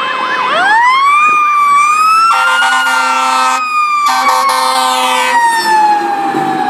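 Fire engine sirens: a fast yelping siren at first, then a wailing siren that rises sharply about half a second in and slowly falls away. Two long air-horn blasts sound over it in the middle.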